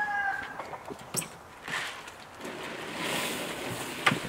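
Grain poured from a plastic bucket into a wooden feeder box: a steady rustling hiss from about halfway in, with a sharp knock near the end. The tail of a rooster's crow fades out at the start.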